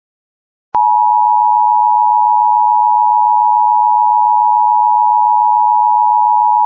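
Emergency Alert System attention signal: the steady two-tone alarm (853 and 960 Hz together), which announces that an emergency alert message follows. It starts with a click after about three-quarters of a second of silence and holds unchanged.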